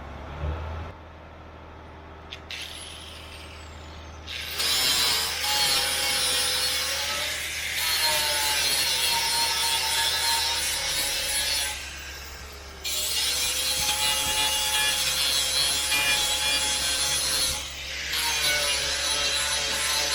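Angle grinder grinding down welds on a steel light box, running in four long passes of several seconds each after a quieter first few seconds. Its whine drops in pitch when the disc is pressed into the work.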